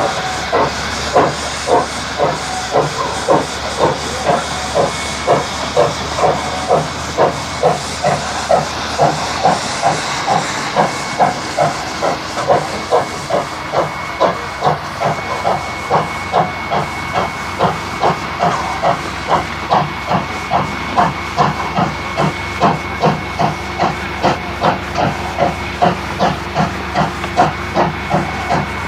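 Steam locomotive Rx207, a South Australian Railways Rx class 4-6-0, working steadily up a grade with even exhaust beats at about two a second: the engine has its feet and is holding its pace. A faint steady high hiss of steam joins about halfway through.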